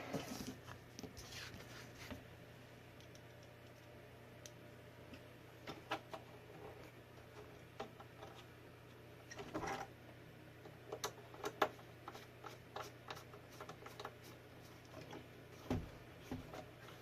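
Faint, scattered clicks and light taps of small screws, tools and plastic parts being handled, over a steady low hum.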